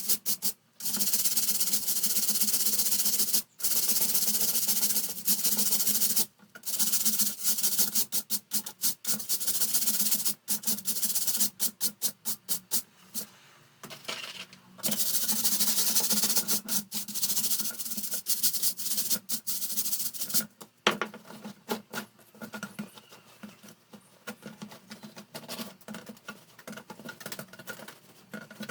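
Fan parts being scrubbed and rubbed during cleaning: long runs of rough rubbing in the first half, then quicker short strokes, growing sparser and quieter toward the end.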